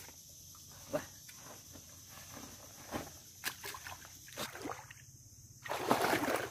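Footsteps squelching in soft mangrove mud, a few sharp wet steps spread across the first few seconds, then a burst of splashing as legs wade through shallow water near the end.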